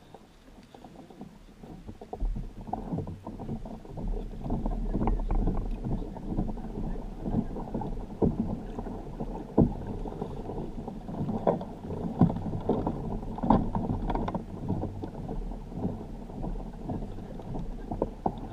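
Muffled rumble and irregular knocks of a Hobie fishing kayak under way: water against the hull and thumps from the boat and its gear, louder from about two seconds in.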